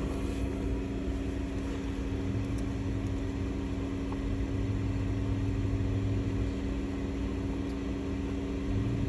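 Jeep Wrangler's engine idling steadily, heard from inside the cab.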